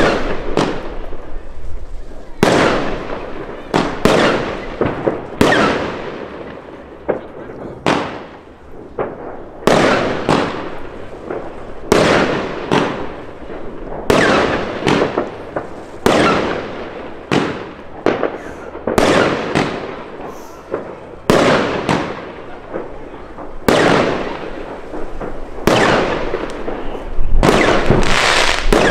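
Pangu 'Brazilian Box' consumer fireworks cake firing its aerial shots in a continuous chained sequence. The sharp bangs come roughly one a second, each trailing off quickly, with a dense cluster near the end.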